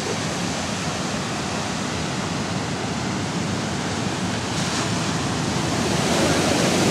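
Steady rush of ocean surf mixed with wind, growing slightly louder near the end.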